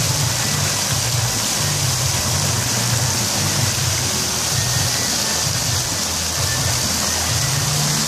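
Splash-pad fountain jet spraying water and splashing onto the deck, a steady hiss of falling water.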